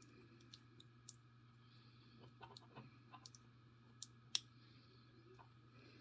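Light metallic clicks of a lock cylinder and small tools being handled while the ASSA 600 lock is disassembled: a few scattered ticks, a cluster in the middle, and one sharper click about four seconds in.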